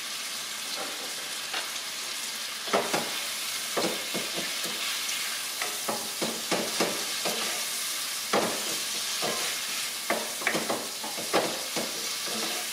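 Shrimp, garlic and paprika sizzling in olive oil in a frying pan over lowered heat. From about three seconds in, a utensil repeatedly knocks and scrapes against the pan as it is stirred.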